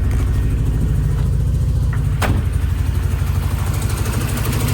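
Mitsubishi Starion's four-cylinder engine idling with an even low pulsing, not firing on all cylinders because of bad spark plug wires. A single sharp click sounds about two seconds in.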